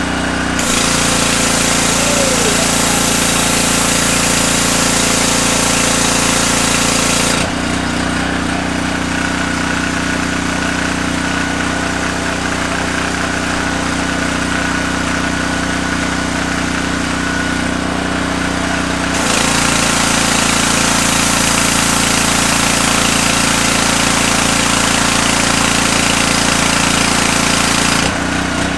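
Power Stroke 3200 psi gas pressure washer engine running steadily, with its high-pressure water jet hissing from a 40-degree nozzle twice, for about seven and nine seconds, as the trigger is held and released; the engine note shifts slightly under the pump's load while spraying.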